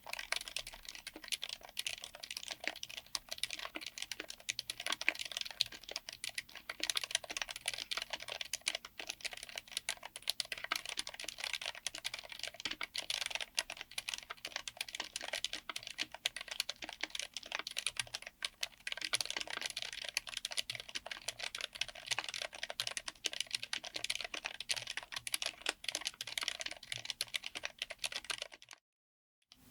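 Fast, continuous typing on a mechanical keyboard fitted with Kailh BOX Silent Pink switches, a dampened semi-silent linear switch, in an FR4-plate, aluminium-cased 60% board. The keystrokes give a dense run of soft clicks that stops abruptly near the end.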